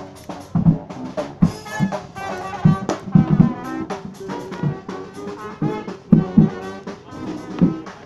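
Funky brass band playing live: horns playing a riff over a drum-kit beat, with loud bass-drum strokes about twice a second.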